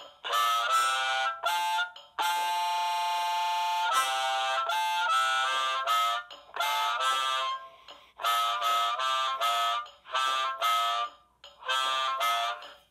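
Eastop Forerunner valveless chromatic harmonica played through a harmonica microphone and a small amp. It plays a blues solo in short phrases broken by brief gaps, with one long held chord about two seconds in.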